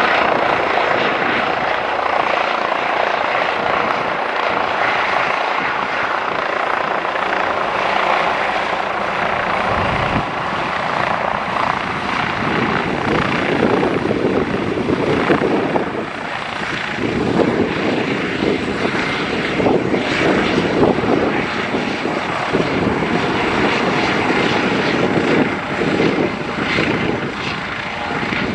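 Aircraft engines running loud and steady at close range, a dense rushing noise with a faint steady hum in it.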